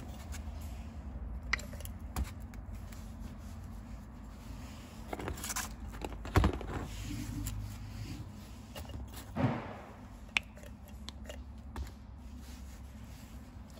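Steel main bearing caps and small tools being handled on a workbench: scattered light clicks, knocks and scrapes, the sharpest about six and a half seconds in, over a low steady workshop hum.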